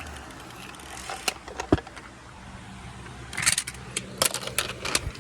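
Car running with a steady low hum, with a scatter of sharp clicks and rattles, most of them between about three and five seconds in.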